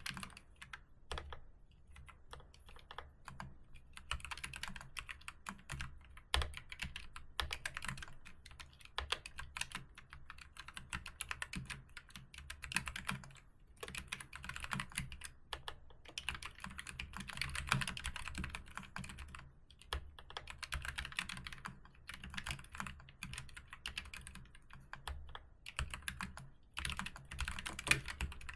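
Typing on a keyboard: fast, irregular runs of key clicks, broken by a few short pauses.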